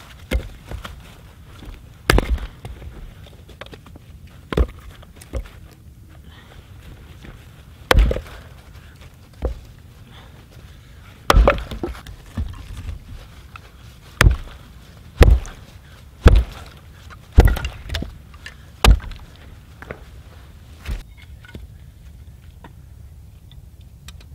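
An axe splitting dead ash firewood on a wooden chopping log: about a dozen sharp chopping knocks at irregular intervals, most frequent and loudest around the middle, stopping a few seconds before the end.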